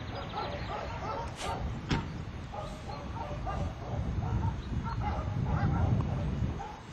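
Dogs barking repeatedly in short calls over a low rumble.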